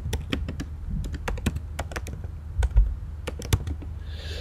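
Typing on a computer keyboard: a quick, irregular run of key clicks over a low steady hum.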